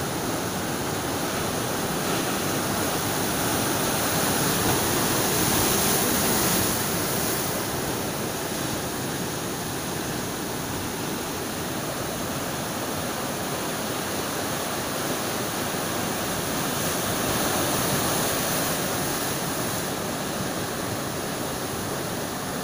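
Rough sea surf breaking and churning over rocks, a steady rushing wash of water that swells louder twice, a few seconds in and again past the middle.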